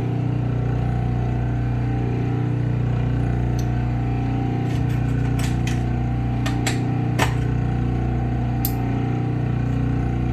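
Clipper blade sharpening machine running with a steady motor hum as its plate spins. A few light clicks fall between about three and a half and nine seconds in, the sharpest just after seven seconds.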